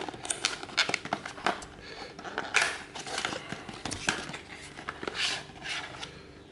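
Packaging being handled and opened by hand: rustling and crinkling with scattered sharp clicks and knocks.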